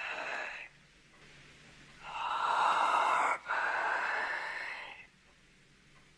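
A man whispering in a breathy, drawn-out voice: a short whisper at the start, then a longer, louder one from about two seconds in until about five seconds in.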